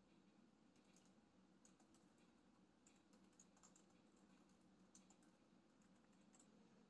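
Faint typing on a laptop keyboard: light, irregular key clicks over a low steady room hum.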